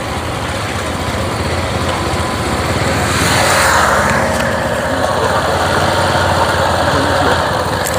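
Motorcycle engines running steadily at low speed, with road and wind noise. The sound swells briefly about three seconds in.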